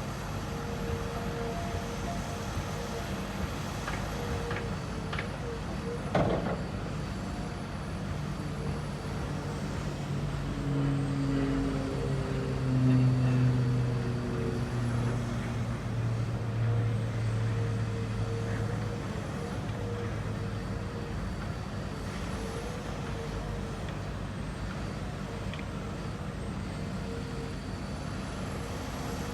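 Radio-controlled construction models working: a steady motor whine runs throughout, with a sharp knock about six seconds in and a louder low, engine-like drone that shifts in pitch from about ten to twenty seconds.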